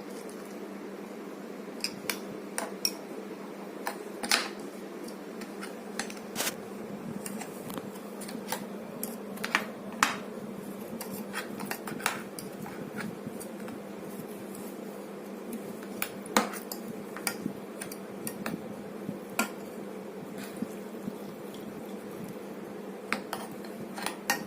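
Spoon and dishes clinking: scattered sharp clinks of utensils against a bowl or cup while milk is added to ground biscuits, over a steady low hum.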